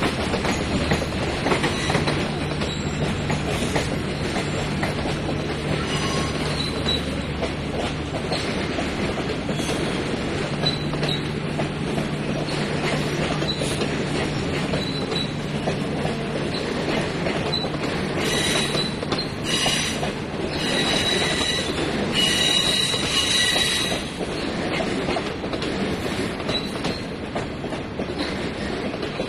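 China Railway 25G passenger coaches rolling past over the rails, with a steady rumble and rhythmic clicking of wheels over rail joints. About two-thirds of the way through, the wheels squeal in high tones for several seconds as the train arrives at the station.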